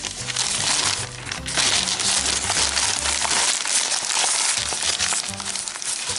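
Newspaper being crumpled and squeezed by hand into a tight ball, a dense crackling rustle, over background music.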